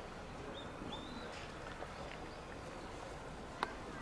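Open-air background noise with a few short, high bird chirps in the first second and a half, and a single sharp click a little after three and a half seconds.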